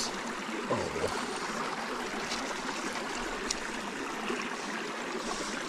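Small, rocky mountain creek babbling steadily as it runs over and between mossy stones.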